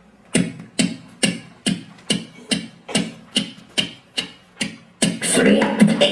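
A performer's rhythmic mouth sounds into a microphone, like vocal percussion: short sharp beats about two a second. About five seconds in they give way to a denser, louder stretch of sound.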